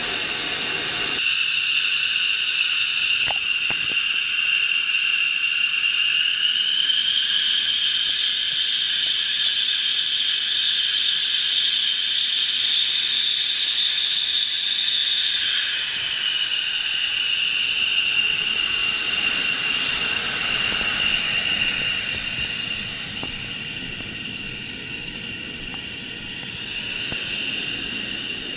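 Jet engine whining steadily with a hiss beneath it. The whine rises in pitch a few seconds in and drops back about halfway through, and the sound grows quieter near the end.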